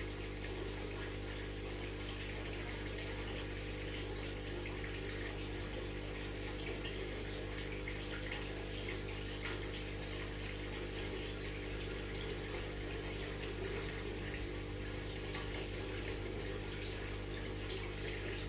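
Aquarium water running and bubbling steadily, with many fine crackles, over a steady low hum from the tank's filter pump.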